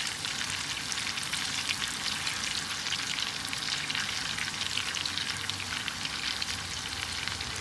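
Food frying in butter in a hot pan for a sauce: a dense, steady sizzle full of tiny crackles and pops.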